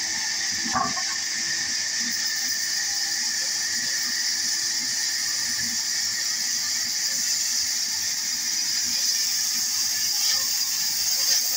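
Large vertical band saw running, its blade ripping a wooden log into planks with a steady high-pitched hiss and whine, and a short knock about a second in.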